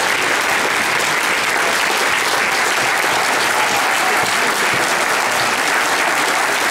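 Applause: many people clapping together in a dense, steady patter.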